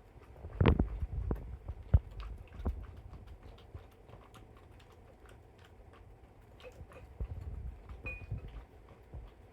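Dog eating wet food from a bowl: wet chewing and clicking mouth sounds in two bouts, the first starting about half a second in and the second around seven seconds in, with a quieter gap between.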